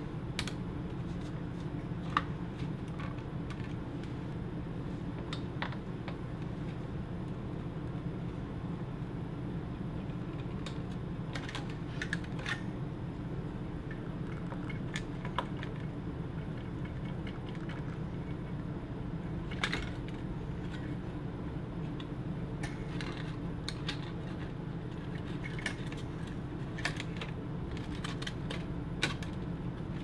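Scattered light clicks and taps as a circuit board and its ribbon connectors are handled and pressed into place on a plasma TV's sustain board, over a steady low hum.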